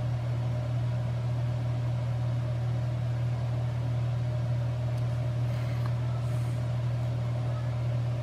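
Steady low background hum, unchanging, with a fainter higher tone and a light hiss above it; nothing else stands out.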